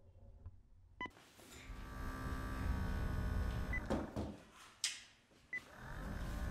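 Electronic sound effects: a click and a short beep about a second in, then a whirring hum that builds and holds. More short beeps come as the hum fades and swells again near the end.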